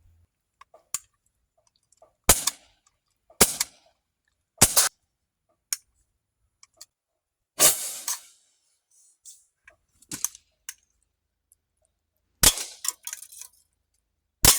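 CO2-powered CZ SP-01 Shadow airsoft pistol firing single shots: about seven sharp pops at irregular gaps of one to three seconds, with faint ticks in between.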